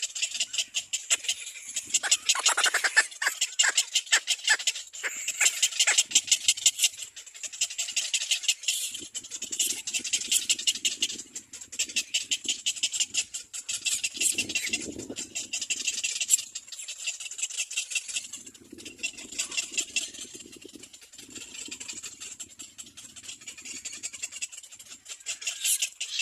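Little black cormorant nestlings calling: a rapid, high-pitched ticking chatter that comes in bursts of a few seconds.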